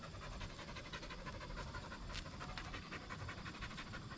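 Aussiedoodle puppy panting rapidly and steadily.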